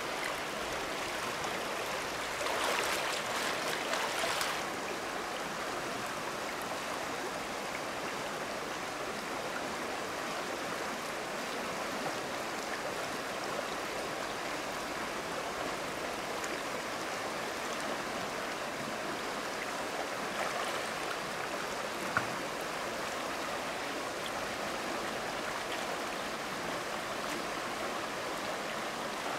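Shallow river running over rocks, a steady rush of flowing water. For about two seconds, starting some 2.5 seconds in, there is louder splashing in the water, and near the end there is one sharp click.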